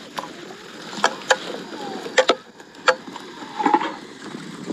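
A metal spoon stirring chopped onions in a metal pot over an open wood fire, knocking and scraping against the pot in irregular sharp clicks. A brief pitched sound comes in a little before the end.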